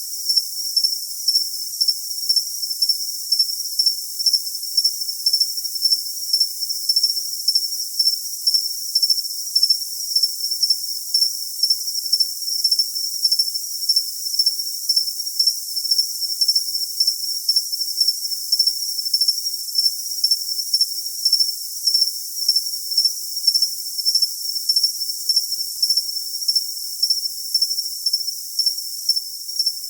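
Cricket chirping continuously: one high-pitched tone pulsing evenly a few times a second, with nothing beneath it in the lower range.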